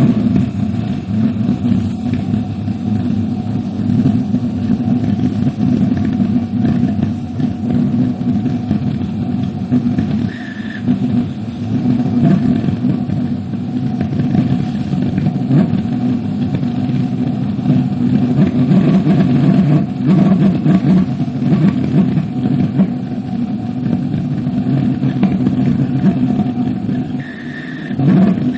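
Gasoline-fuelled mini pulsejet engine, a scaled-down copy of the E-95 target drone's engine, running steadily and loudly. Its level sags slightly near the end.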